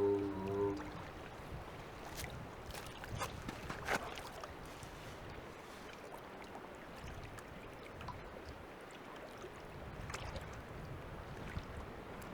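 Faint lapping and small splashes of lake water, with a few light knocks now and then, as a capped pipe is worked in the water and floats.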